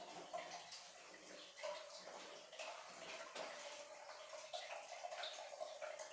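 Faint water trickling and dripping in a small tiled bathroom, with small irregular splashes and drips over a steady wash of water noise.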